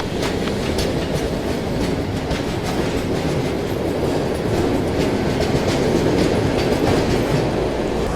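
A train running on rails: a steady rumble with repeated wheel clicks over the rail joints.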